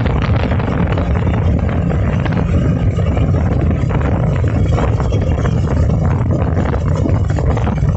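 Motorboat under way at a steady speed: a steady low engine drone with a rushing hiss over it.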